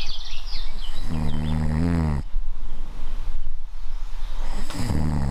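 A man snoring in his sleep: two long, low snores about four seconds apart.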